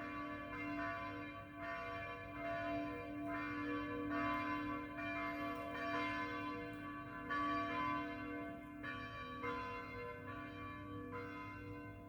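Church bells rung by hand, calling to dawn prayer: strokes come roughly once a second and overlap into a continuous, many-pitched peal. The strokes thin out near the end and the ringing dies away.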